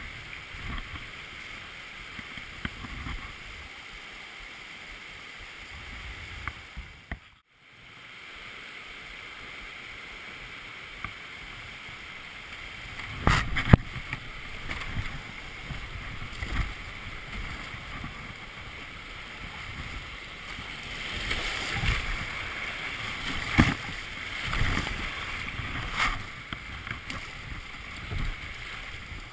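Whitewater rushing around a creek kayak running a small rocky stream, with water washing over the spray skirt. Several sharp splashes stand out around the middle and near the end, and the sound drops out for a moment about seven seconds in.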